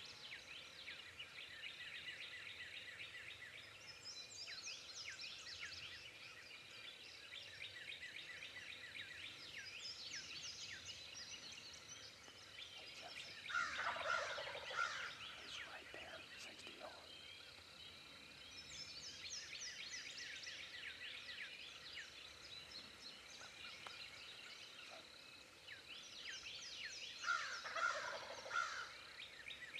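Eastern wild turkey gobbling twice, about 14 seconds in and again near the end, each a rattling gobble of about a second and a half, over steady songbird singing.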